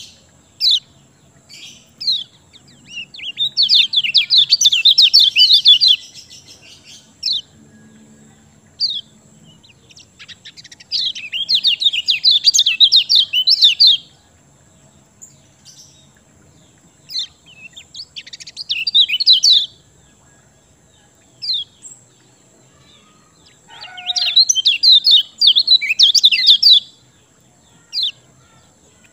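Kecial kuning, a white-eye, singing: four spells of fast, high trilling chirps of two to three seconds each, with single short chirps in the gaps between them.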